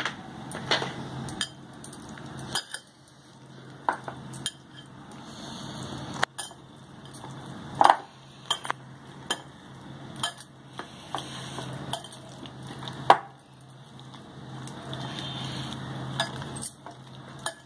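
A hand mixing raw chicken drumsticks with green paste and yogurt in a glass bowl: irregular clicks and knocks of the pieces and fingers against the glass, over soft stirring of the marinade.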